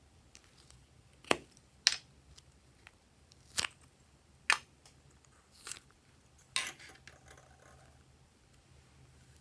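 Hard plastic clicking and knocking as a plastic pineapple-shaped container is handled and opened: about six sharp, separate clicks spread unevenly over several seconds.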